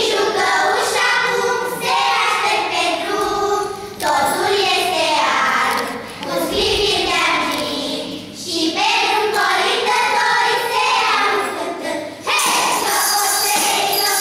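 Children's choir singing together. Near the end, jingle bells start shaking along with the singing.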